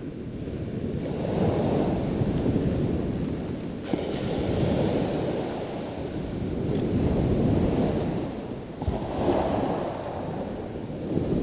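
Sea waves washing on a shingle beach, the surge swelling and falling back every few seconds, with wind on the microphone.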